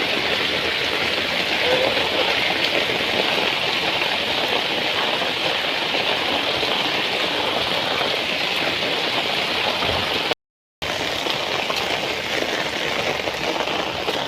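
Heavy rain falling steadily, a continuous hiss, broken by a brief cut to silence about ten seconds in.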